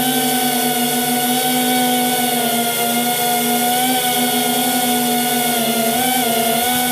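FPV drone's electric motors and propellers whining steadily at a near-constant pitch as it flies slowly and low, the pitch wavering slightly near the end.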